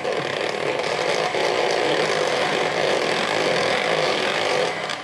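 Electric hand mixer running steadily, its beaters whisking whipped cream and sour cream in a glass bowl; it stops near the end.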